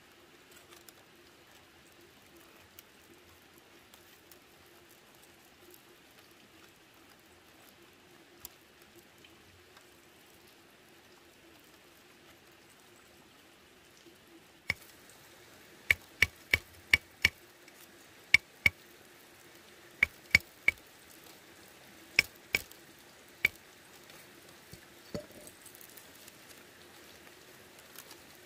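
Bamboo sticks and split-bamboo strips clicking and knocking sharply as they are handled: faint background at first, then about fifteen sharp clicks in quick clusters of two to four over the second half.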